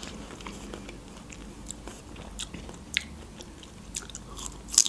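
Close-miked eating of fresh strawberries: chewing with scattered wet mouth clicks, and a bite into a strawberry dipped in whipped cream, the loudest click coming just before the end.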